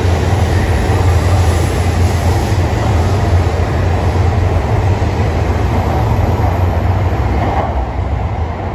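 E5 series Shinkansen train running past the platform, a steady low rumble of traction motors and wheels on rail. The sound eases off near the end as the tail car passes and draws away.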